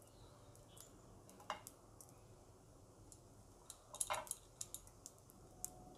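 Faint scrapes and light taps of a steel spoon on a nonstick frying pan as a lump of ghee is pushed around to melt, with a few clicks close together about four seconds in.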